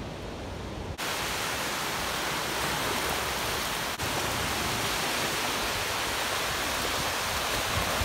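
Small waves washing on a beach, a steady rushing hiss that jumps abruptly louder about a second in.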